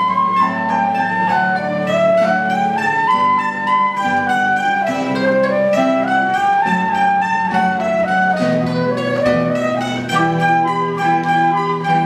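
Live chamber music: a flute carrying a quick melody that steps up and down, over plucked mandolin and guitar accompaniment.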